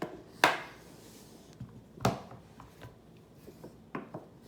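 Three sharp knocks of hard objects being handled and set down on a tabletop, the first the loudest.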